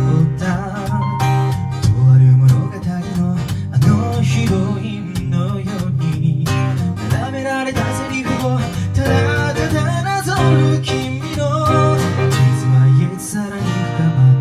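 Acoustic guitar music: a song played on acoustic guitar, with plucked and strummed chords over a steady bass.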